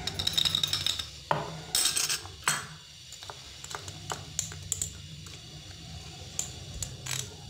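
Ice cubes and mango pieces rattle and clink inside a glass bottle as it is shaken. A few sharp knocks follow, then scattered light clicks of glass being tapped and set down on a wooden board.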